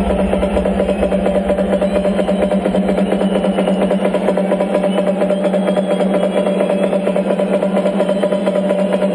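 Loud electronic dance music from a concert sound system, heard from inside the crowd: a held synth drone with a fast, even pulse. The deep bass drops away about half a second in.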